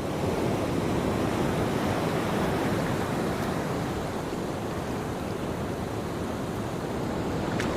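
Sound of the sea: a steady rushing wash of waves and water, swelling and easing slightly, with a few faint ticks right at the end.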